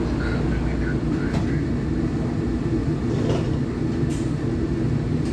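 Adtranz M4 subway car running at speed through a tunnel, heard from inside the car: a steady low rumble of wheels on rail, with a few short clicks.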